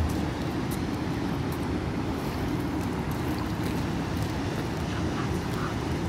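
Steady low rumbling background noise with no distinct events, holding an even level throughout.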